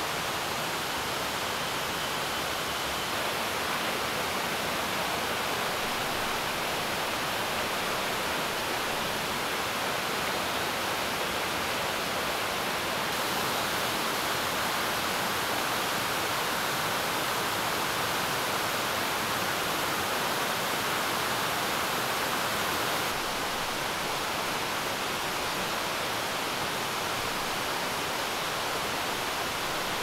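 Steady rush of a mountain headwater stream flowing over rocks: an even hiss of water that shifts slightly in tone a few times.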